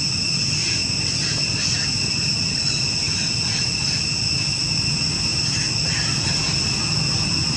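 A chorus of insects droning in steady, continuous high tones, over a low steady rumble.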